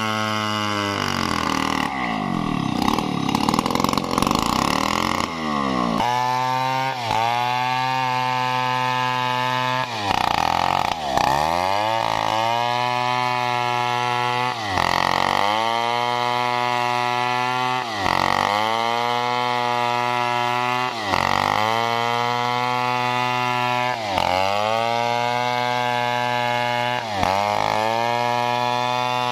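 Stihl chainsaw ripping lengthwise through a large coconut palm log, the engine held at high revs. Its pitch drops briefly about every three seconds and climbs back, with a rougher, unsteady stretch a few seconds in.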